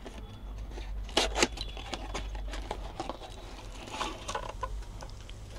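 Hands opening a small cardboard box of telescope accessories and pulling at its packaging: light crinkling and a few scattered clicks and taps, the sharpest a little over a second in.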